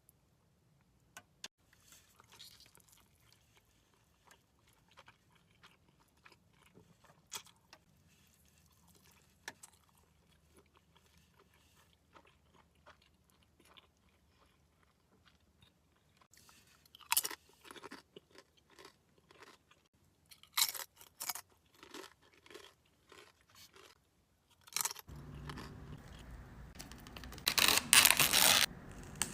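Close-miked eating of birria tacos: soft chewing and mouth clicks at first, then sharp crunching bites into the crisp fried tortillas, loudest near the end.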